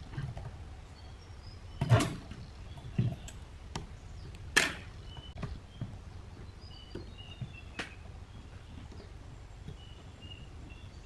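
Metal clicks and taps from a brass pendulum-clock movement being handled and worked with a screwdriver. There are several sharp clicks, the loudest about two seconds in and again midway.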